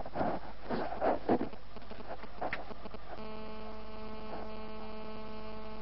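Steady electrical hum in old broadcast audio, with a few short rustles or knocks in the first half. About three seconds in, a steady buzzing tone with even overtones joins and holds.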